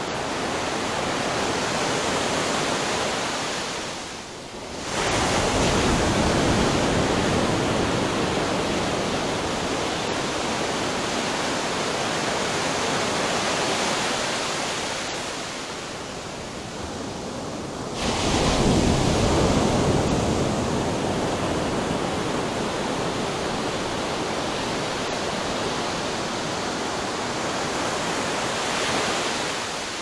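Ocean waves breaking on a shore: a continuous wash of surf, with a bigger wave crashing in about five seconds in and another about eighteen seconds in, each slowly fading as it washes back.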